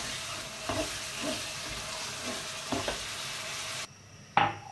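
Chickpeas frying in oil and spices in a pot, sizzling steadily while being stirred, with a few light knocks of the spatula against the pot. The sizzle cuts off abruptly near the end.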